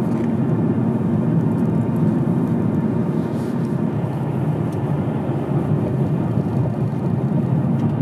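Steady engine and road noise heard inside the cabin of a moving car, with tyres running on a wet road.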